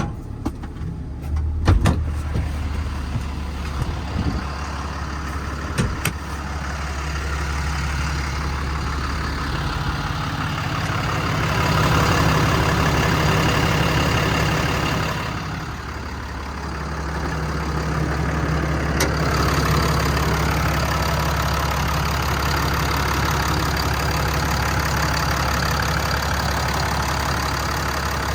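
Ram 5500's 6.7 Cummins diesel engine running, its sound swelling and then dropping away briefly about halfway through before building again. A few sharp clicks in the first two seconds.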